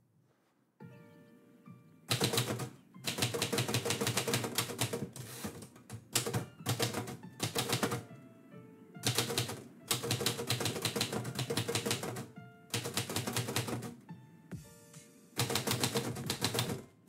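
Typewriter being typed on: rapid runs of keystrokes in bursts with short pauses between them, starting about two seconds in, over quiet background music.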